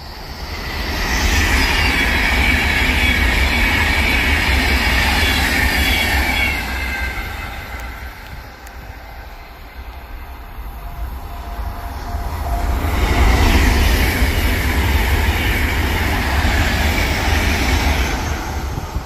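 Two Class 390 Pendolino electric express trains pass at speed one after the other. Each makes a rush of wheel-on-rail noise that builds and fades over about six seconds, with a lull between; the second begins about halfway through.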